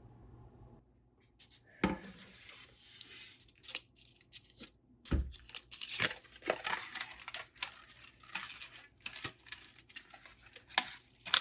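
Irregular tearing and crinkling, like something being pulled or torn apart by hand, broken by scattered sharp clicks and knocks. It starts about two seconds in, and the loudest knock comes about five seconds in.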